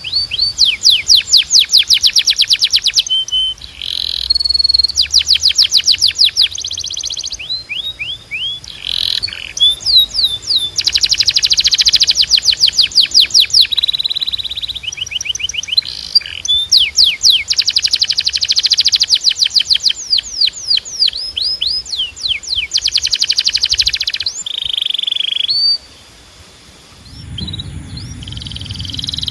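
Canary singing a long, loud song of fast trills of repeated falling notes, alternating with buzzy rolls and short whistled notes, in phrases separated by brief pauses. The song breaks off briefly near the end while a low rumble comes in underneath.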